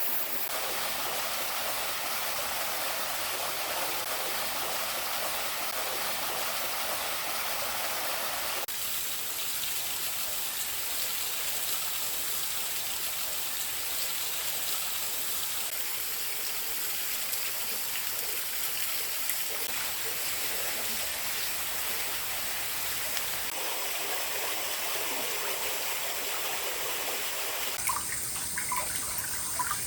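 Stream water flowing steadily. The sound shifts abruptly about nine seconds in, and near the end closer splashing and gurgling water comes in.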